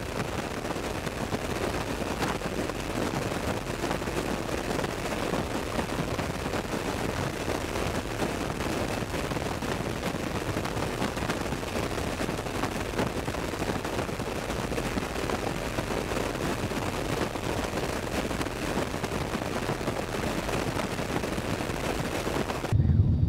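Steady in-flight noise from an open rear cargo ramp: a loud rush of wind and engine noise with a dense, rapid buffeting rattle, cutting off abruptly near the end.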